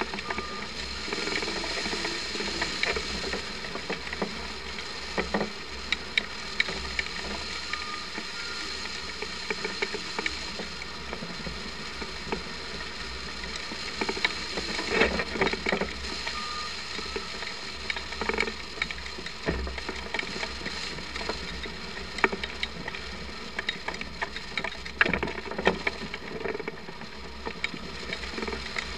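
Steady rush of air over a camera mounted on a hang glider in flight, with irregular rattling clicks from the glider's frame and sail.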